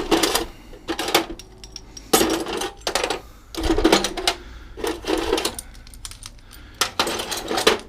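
Metal furniture casters clinking and rattling against each other as they are rummaged through and picked out by hand, in about six short bursts of clatter.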